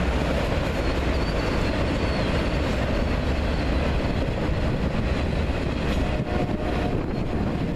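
Union Pacific freight train of autorack cars rolling across a bridge: a steady rumble of wheels on rail, with a faint high wheel squeal briefly about a second in. Wind on the microphone adds a heavy low rumble.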